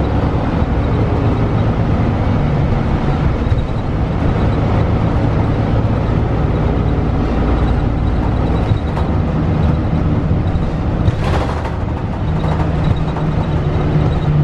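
Inside a 2012 Gillig low-floor hybrid transit bus under way: its Cummins ISL9 diesel and road noise make a steady loud rumble with a low hum. A brief hiss comes about eleven seconds in.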